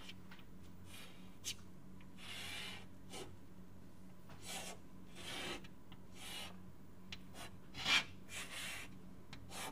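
A pen writing and drawing: irregular short scratching strokes, some drawn out to about a second, over a faint steady hum.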